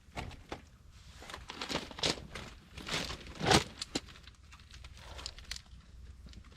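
Irregular crackles, snaps and rustles from a campfire of wet firewood being brought alight, with the loudest snap about three and a half seconds in.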